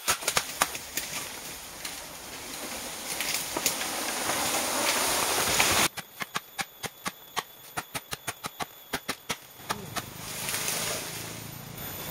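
Machete chopping bamboo stems: a few sharp strikes, a rustling hiss that builds for several seconds and stops abruptly, then a quick run of light chops, about four a second. A steady hiss follows near the end.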